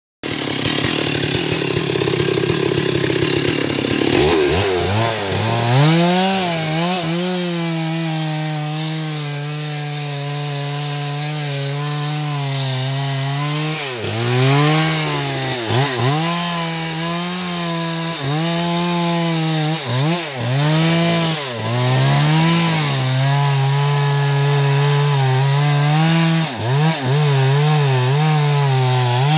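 Stihl two-stroke chainsaw running at high revs while cutting into a large teak trunk. For the first few seconds it is rougher with no clear pitch, then it settles to a steady high whine. The pitch dips and recovers again and again as the chain bites into the wood under load.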